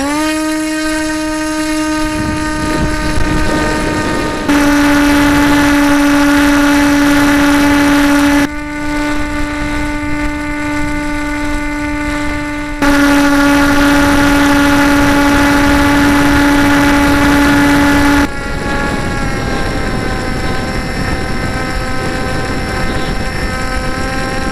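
Electric motor and propeller of a Skywalker FPV foam plane running at a steady high pitch, heard close-up from beside the fuselage. It gets abruptly louder for two stretches in the middle.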